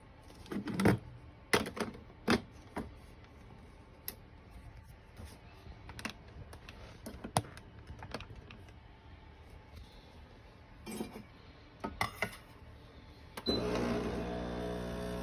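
Brewsley espresso machine being handled, with scattered clicks and knocks; about thirteen seconds in, a steady buzz starts and runs for about two seconds.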